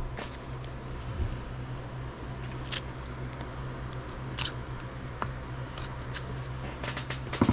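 Scissors snipping and scraping through the tape seal of a hard plastic trading-card case, with scattered small clicks and scrapes of blade on plastic and a sharper click near the end.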